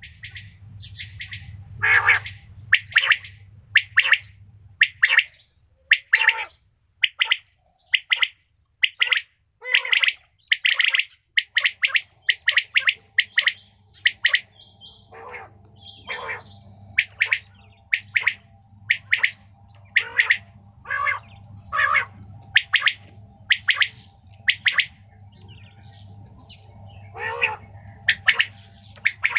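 Quail (batair) calling over and over: short, high chirps coming about one to two a second, some in quick pairs, over a steady low hum.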